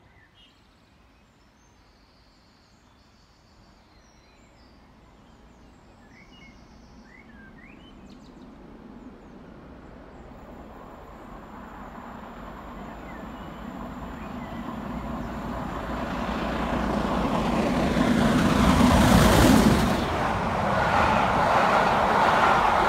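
Steam locomotive hauling a passenger train through a station at speed: it is faint at first, grows steadily louder as it approaches, and is loudest as the engine passes close about nineteen seconds in. The coaches then rumble past.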